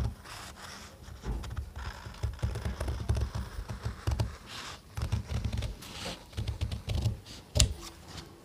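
Scissors snipping through a stiff white pattern sheet along a curved chalk line, in a run of short, repeated crunching cuts, with one sharper click near the end.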